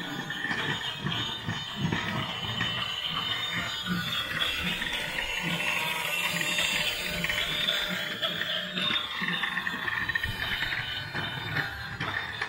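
Motorised plastic toy train running along plastic track: a steady whirr of its motor and gears with a continuous run of small clicks.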